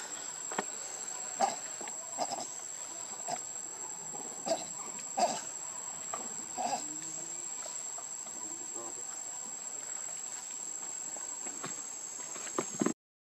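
Steady high-pitched insect drone, with a handful of short sharp sounds scattered through the first seven seconds; everything cuts off suddenly just before the end.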